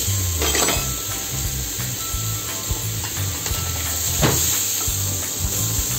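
Stuffed beef rolls sizzling as they sear in a hot ridged grill pan, with metal tongs clicking against the pan about half a second in and again a little past four seconds in.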